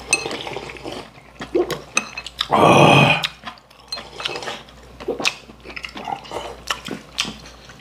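Noodle soup slurped noisily from a bowl, one long loud slurp about two and a half seconds in, with chopsticks clicking against bowls and dishes.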